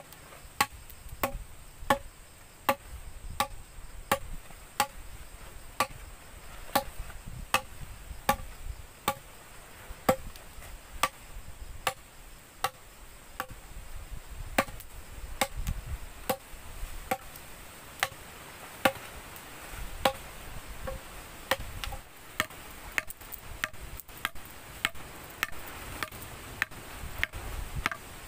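Machete chopping into a green bamboo tube on the ground: steady, regular strokes about every two-thirds of a second, each a sharp knock with a short ring.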